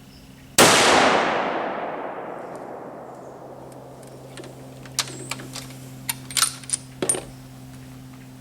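A single rifle shot from a Winchester Model 70 in .270 Winchester, loud and sudden, with a long rolling echo that fades over about three seconds. Several sharp metallic clicks follow a few seconds later, as the bolt is worked to chamber the next round.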